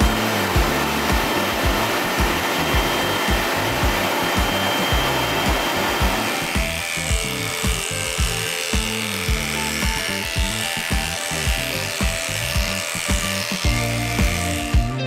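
Pet blow dryer blowing on a dog's coat during brushing, a steady rush of air, over background music; about six seconds in it gives way to electric dog clippers running through the short coat, a thinner, higher buzz that carries on to the end.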